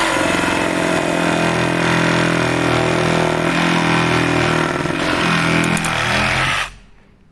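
Reciprocating saw (Sawzall) running steadily under load as it cuts wood, then stopping a little over six seconds in.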